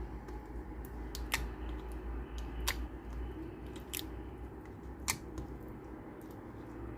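Slime being pressed and stretched by hand, giving sharp clicks and pops about once a second, with fainter ticks between, over a low steady hum.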